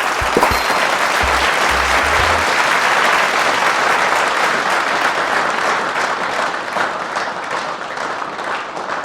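Crowd applause: many hands clapping in a dense, steady patter that eases off a little near the end. A few low thumps sound in the first couple of seconds.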